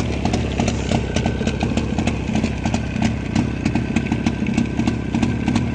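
Jawa 638 two-stroke twin engine idling with a fast, sharp clatter from the clutch side. It sounds as if the chain is hitting the left crankcase cover, and a chain tensioner fitted to stop it has not cured the noise.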